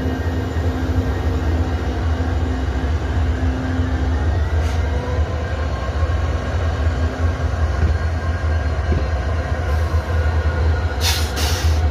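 EMD WDG4 diesel-electric locomotive's 16-cylinder two-stroke engine humming steadily with a deep, even drone. A few short hisses come near the end.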